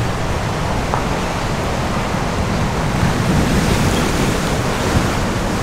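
Ocean surf breaking and washing on a rocky shoreline of black lava rock, a steady rush of noise.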